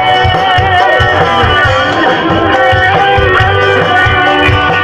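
Loud music with a heavy, pulsing bass and a melody over it, played through a large PA sound system.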